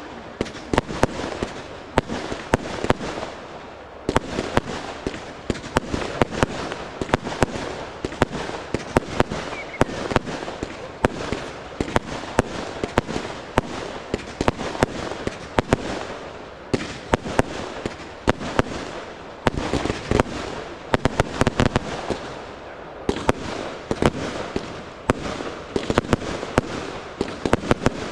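Professional aerial fireworks display: shells launching and bursting in quick succession, with many sharp bangs and pops, several a second, over a steady hiss.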